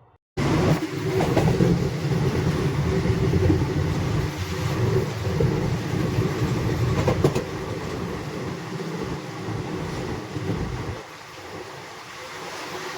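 Moving passenger train: the steady rumble and rattle of the coaches running on the rails, with a few sharp clicks of the wheels over rail joints. It starts abruptly about half a second in and eases a little near the end.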